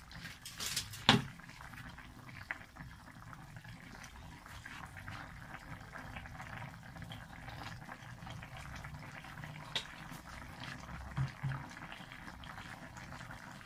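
Chicken stew in pineapple-juice sauce simmering in a pan: a soft, steady bubbling and popping, with a few louder pops.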